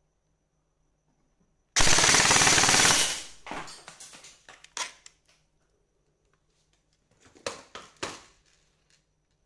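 ICS MARS PDW9 airsoft electric gun firing a full-auto burst of a little over a second, about two seconds in, followed by a fading clatter. Two sharp knocks come near the end.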